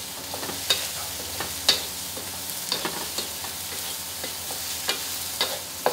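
A metal spatula scraping and clinking against a steel wok while aromatics fry in hot oil with a steady sizzle. The sharp clinks come irregularly, several times a second at most.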